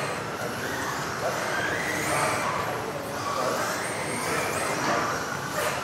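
Several 1:10 electric off-road RC buggies with modified-class motors racing on an indoor carpet track. The motors whine, rising and falling in pitch as the cars accelerate and brake through the corners, over a steady hiss of tyres.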